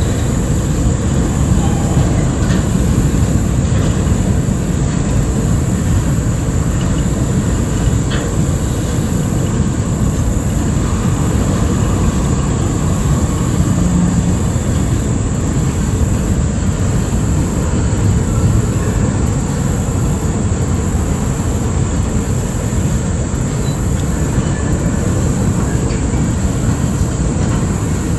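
Freight train's cars rolling across a long stone-arch railroad bridge: a steady, unchanging low rumble of wheels on rail.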